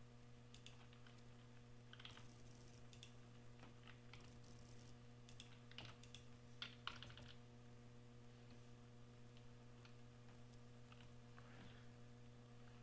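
Faint, scattered computer keyboard keystrokes and mouse clicks, the loudest pair a little under seven seconds in, over a steady low electrical hum.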